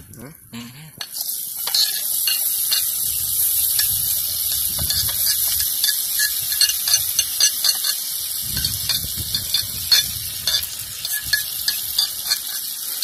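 Chopped onion and vegetables sizzling as they hit hot oil in an aluminium pot, the frying hiss starting about a second in and then holding steady. Over it come light clicks and scrapes of a knife pushing the vegetables off a metal plate and against the pot.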